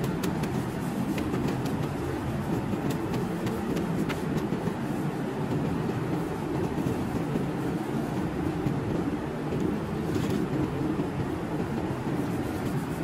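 Steady low rumble of workshop background noise, with a few faint light clicks in the first few seconds and again near the end.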